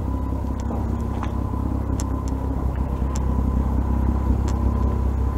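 A steady low rumble of running machinery, with a constant high thin hum over it and a few light clicks and knocks.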